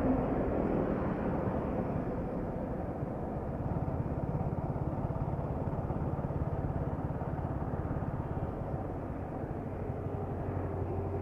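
Yamaha R15M's 155 cc single-cylinder engine running steadily, breathing through a high-performance air filter; its note settles lower about eight seconds in.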